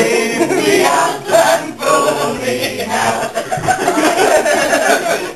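A small group of amateur voices singing together without accompaniment.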